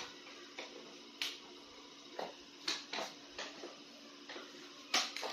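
Scattered light clicks and taps of plastic toy figures and packaging being handled, roughly one a second, with a sharper click near the end.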